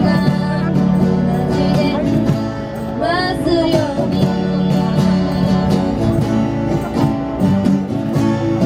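Live music: a singer with acoustic guitar accompaniment, a steady strummed, country-style song.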